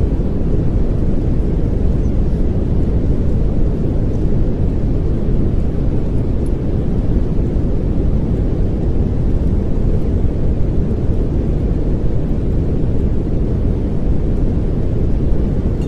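Steady pink noise: a deep, even whoosh with most of its weight in the low end, unchanging throughout.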